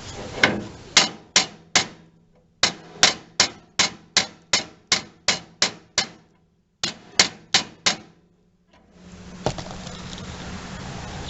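Metal-on-metal tapping: a socket is struck against a seized hydraulic quick coupler on a John Deere 318 to knock it loose. The sharp strikes come in three runs at about three a second, then one more. A steady hiss sets in near the end.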